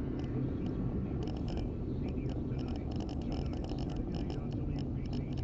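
Steady low rumble of a car's engine and tyres at slow speed in heavy highway traffic, heard inside the cabin through a dashcam's microphone, with faint irregular high-pitched ticks over it.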